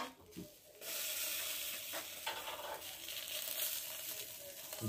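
Meat sizzling on the grate of a kettle grill: a steady hiss that starts about a second in, with a few light clicks.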